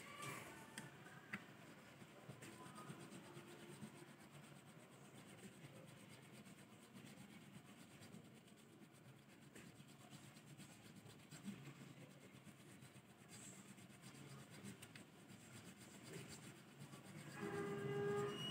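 Faint rubbing of a small file working a slot in a bass guitar's nut. Near the end a brief, louder pitched ringing tone sounds.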